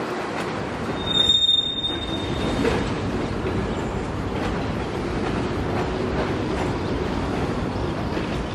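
Loaded freight train rolling past with a steady rumble of wheels on rail. About a second in, a brief high-pitched steel wheel squeal sounds.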